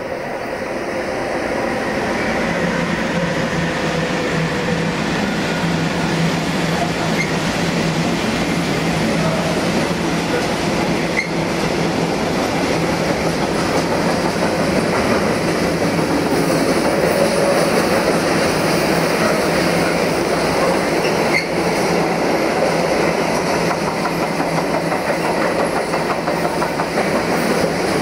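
Freight train rolling past close by, its wagons' wheels clattering over the rail joints. The sound builds over the first couple of seconds, then stays loud and steady.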